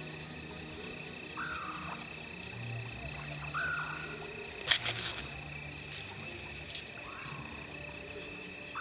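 Forest ambience: a steady high-pitched trilling chorus of frogs and insects, with a short falling call repeating every two to three seconds. About halfway through there is one sharp click as a folding pocket knife is flipped open.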